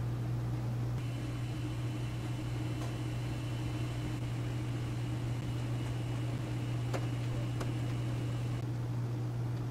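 A steady low hum with a light hiss, and a faint high whine for most of it. About three faint clicks come as greased needle bearings are set one by one into the bore of a transmission cluster gear.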